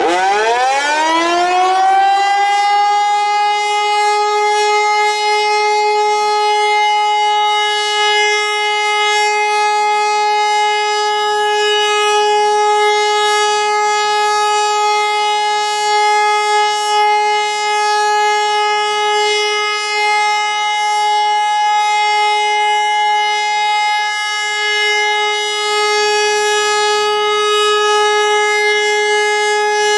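HLS573 high-performance siren winding up, its pitch rising for about two seconds, then holding one steady tone. This is the Austrian 'Warnung' (warning) signal, a continuous tone sounded here as a siren test.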